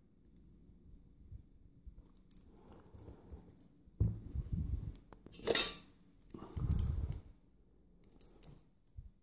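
Small metal clinks, clicks and scrapes as a rim cylinder lock is handled and its retaining clip is worked at with tools. The clicks are faint at first, grow louder about four seconds in, and a sharp clatter comes about halfway through.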